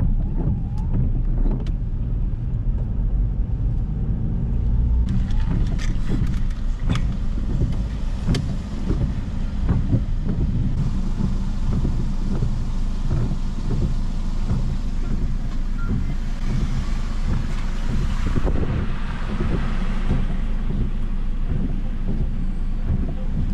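Car cabin noise while driving: a steady low engine and road rumble with lighter tyre hiss above it.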